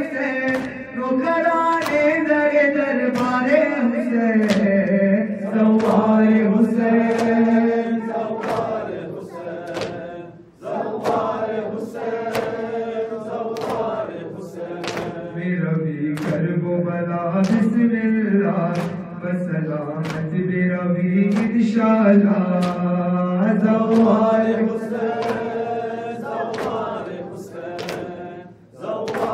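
Male voices chanting a noha, a Shia lament, in a slow melodic line, over a steady beat of sharp slaps a little more than once a second. The slaps are the mourners' matam, chest-beating kept in time with the chant. The chant breaks off briefly about ten seconds in and again near the end.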